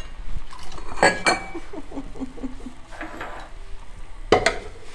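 A metal ladle clinking and scraping against the inside of an aluminium pressure cooker while boiled pork leg pieces are scooped out, with a few sharp clanks about a second in and the loudest one near the end.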